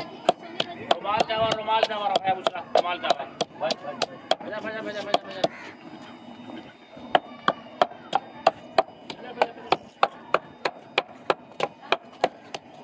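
Wooden pestle pounding in a wooden mortar with a steady beat of about three strokes a second, crushing green chillies and herbs for chutney. A voice is heard over the first half.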